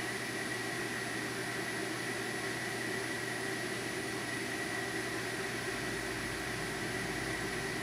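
Manford 200VS milling machine running, its inverter-driven spindle motor giving a steady hum with a thin high whine.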